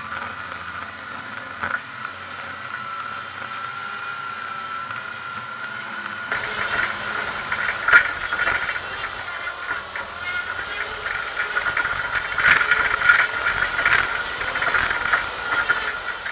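A 4WD driving off-road, recorded from on board: a steady hiss with a constant high whine. About six seconds in it turns to the busier rattling and sharp knocks of the vehicle crawling up a steep rocky track.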